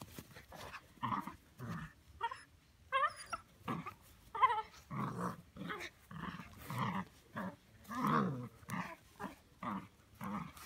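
Eight-week-old Belgian Malinois puppy growling in play, in short repeated bursts, while it bites and tugs on a towel.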